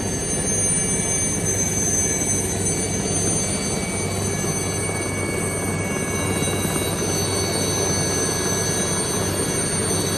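Helicopter turbine engine running steadily on the ground: a steady rush with a thin high whine.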